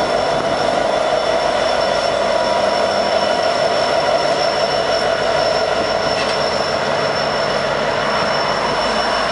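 Union Pacific diesel locomotives at the tail of a freight train passing close and drawing away, with steady rail and engine noise and several high, held wheel-squeal tones over it.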